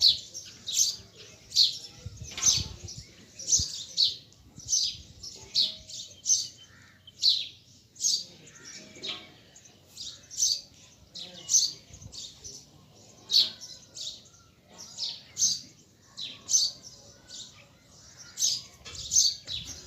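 A bird chirping over and over, short high calls repeated a little faster than once a second.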